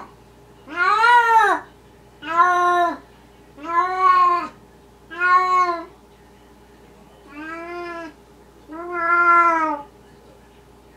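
Maine Coon cat giving six drawn-out meows in a row, roughly one every second or so, each rising and then falling in pitch; the fifth is quieter than the rest.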